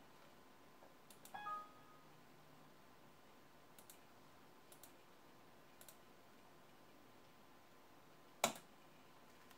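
Faint computer mouse clicks, a handful spread a second or so apart, with one much louder click near the end. A brief electronic tone sounds about one and a half seconds in.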